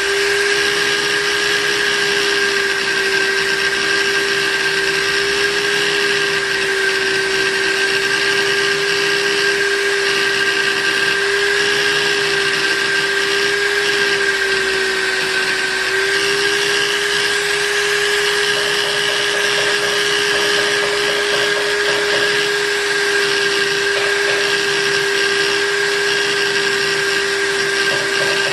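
Electric buffing machine running steadily as a spoon knife is buffed: a constant motor hum with a higher whine above it.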